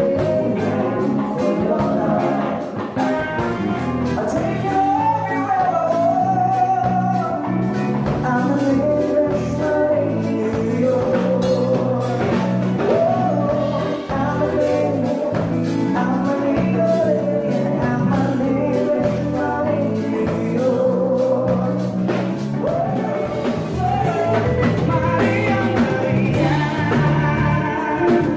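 Live band playing a song with a lead vocalist: singing over electric guitar, bass, keyboard and drums.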